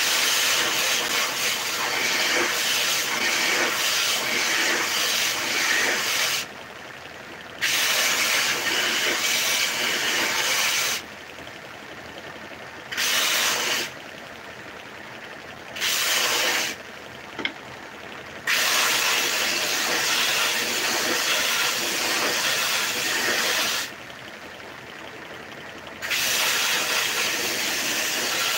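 Homemade belt sander sanding small wooden pieces: a loud, steady hiss of abrasive on wood that drops sharply to a much quieter level in several short breaks.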